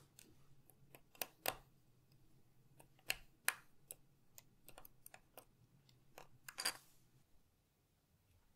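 Small plastic clicks and ticks from a precision screwdriver turning tiny screws into JEKCA plastic blocks and the blocks being handled: about a dozen sharp, irregular clicks, the loudest a little after one second and around three seconds in, stopping about two seconds before the end.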